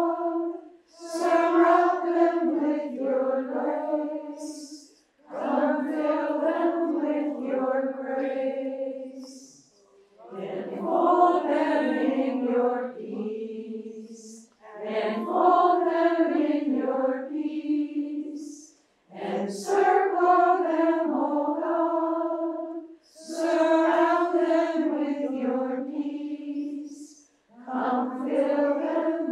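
A group of women singing a prayer together in unison and unaccompanied, in phrases of about three to four seconds with brief pauses for breath between them.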